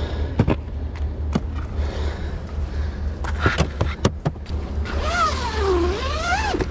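Clatter of fishing gear against rock: scattered knocks and scrapes as a tackle box and rod case are carried over a sandstone reef, over a steady low wind rumble on the microphone. Near the end a squeak falls and then rises in pitch for about a second and a half.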